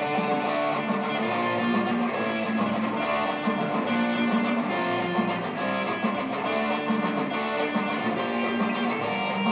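Stratocaster-style electric guitar being played: a continuous run of sustained, overlapping notes.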